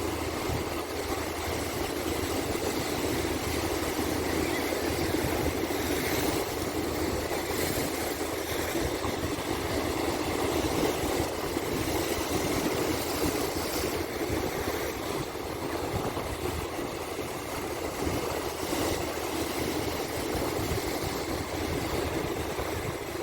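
Calm sea waves washing onto the shore in a steady rush, swelling gently every few seconds.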